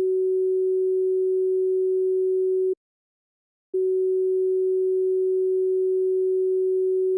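Emergency alert attention tone: a single plain steady tone sounded twice, each about three seconds long, with about a second of silence between them.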